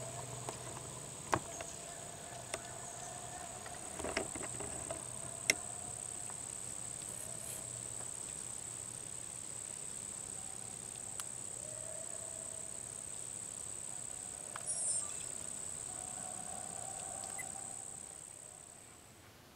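Steady high-pitched insect trill with a few faint clicks, fading out near the end.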